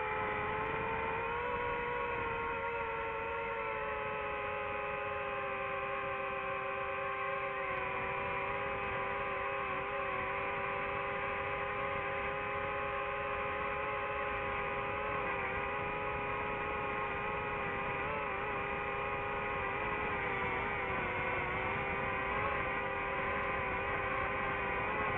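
DJI FPV quadcopter's motors and propellers whining steadily as it cruises, several close tones at once, the pitch shifting slightly with the throttle.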